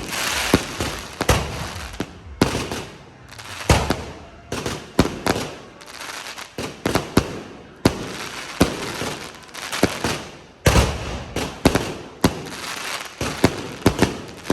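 Fireworks going off close by: a string of loud, sharp bangs at irregular intervals, sometimes several a second, with crackling and hissing between them.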